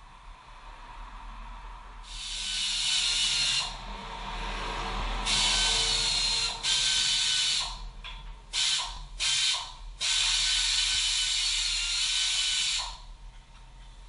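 Pneumatic air tool run in about six trigger bursts, hissing with a rattle, most of them a second or two long and the last about three seconds.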